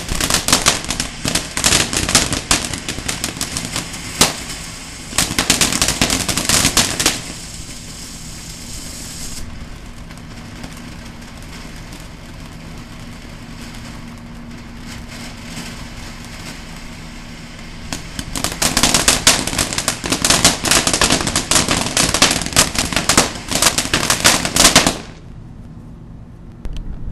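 Ground fountain firework spraying sparks with dense, rapid crackling pops. A loud spell of crackling opens, a quieter stretch of hiss and scattered crackle follows, then a second loud spell of crackling that cuts off suddenly near the end as the fountain burns out.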